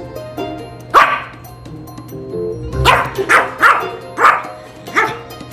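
Pomeranian barking over background music: one sharp bark about a second in, then five quick barks in a row from about three seconds in.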